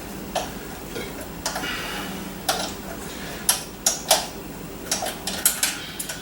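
Irregular sharp metallic clicks and clinks, about a dozen, from a steel mower blade and tools being handled at a bench grinder, over a steady low hum.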